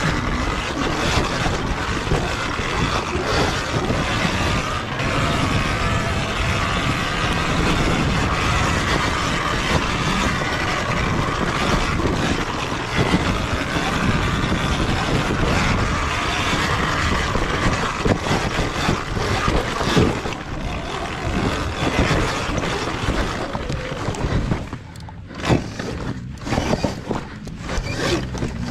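Sur-Ron Ultra Bee electric dirt bike riding a rough dirt trail: dense, steady wind and riding noise with rattles. Near the end it slows and the sound breaks into separate knocks and scrapes as it picks over rocks.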